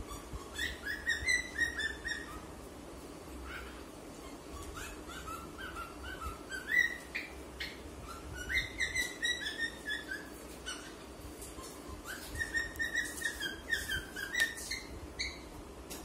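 Cockatiel whistling in runs of short chirpy notes, four phrases with pauses between.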